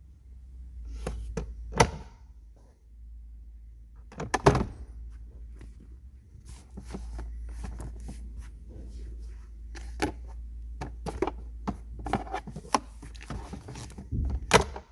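A run of irregular clicks and knocks from hard parts being handled and fitted, loudest about two seconds in and again at four and a half seconds, over a steady low rumble.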